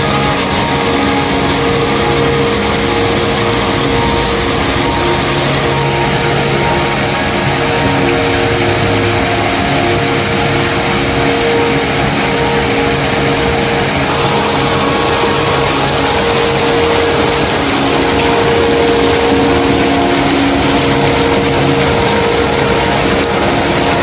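Small waterfall pouring from a rock spout into a shallow stone pool: a steady, loud rush and splash of falling water.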